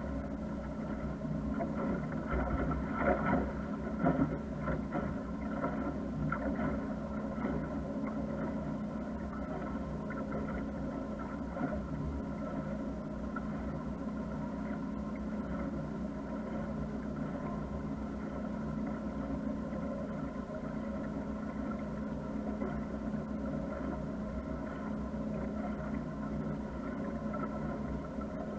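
A motor cruiser's engine running steadily at low cruising speed, an even hum with a steady pitch, briefly rougher and louder about three to four seconds in.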